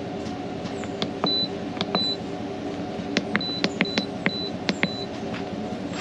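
Control panel of a 12-volt portable chest fridge beeping as its buttons are pressed: about half a dozen short high beeps mixed with button clicks, while the panel is unlocked and its mode and temperature settings are changed. A steady low hum runs underneath.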